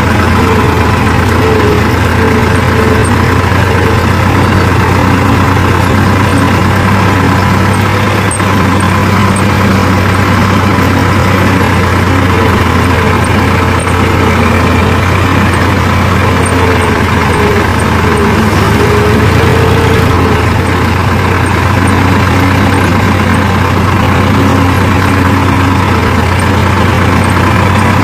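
Farm tractor's diesel engine running steadily as the tractor drives along a dirt track, heard close from the driver's seat beside the exhaust stack.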